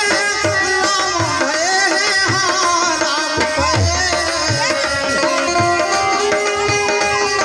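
Live Indian folk music: a dholak drum beats a steady rhythm of a little under two strokes a second under a harmonium and a wavering melody line.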